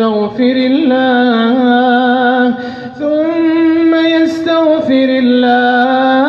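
A man's voice chanting Quran recitation in a melodic, drawn-out style, holding long steady notes with small ornamental turns. There is a brief pause about two and a half seconds in, after which the pitch steps up.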